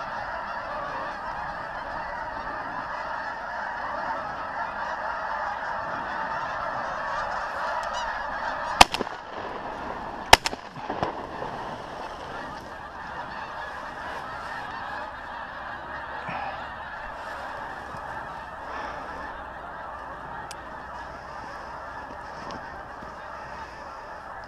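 A large flock of geese honking continuously. About a third of the way in, two shotgun shots about a second and a half apart, a double, cut through the honking, which then slowly thins.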